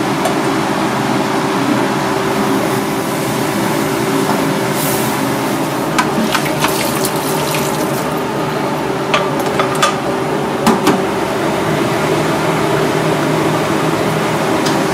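Water running from a kitchen tap into a steel sink, steady over a low hum, with a few light clicks and clatters of kitchenware, the loudest about ten to eleven seconds in.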